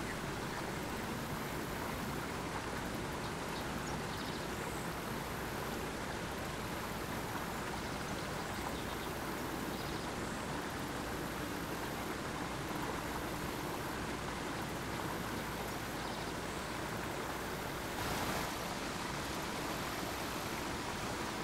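Steady rushing of a swift-flowing creek, an even noise without distinct events, with a brief louder swish near the end.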